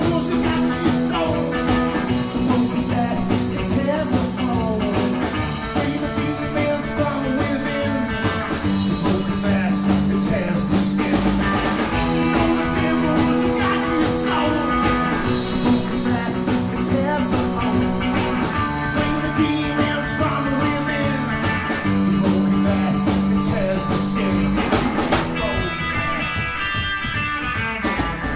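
Live rock band playing an instrumental passage, with guitars sustaining chords that change every few seconds over bass and drums with cymbals. The band thins out near the end.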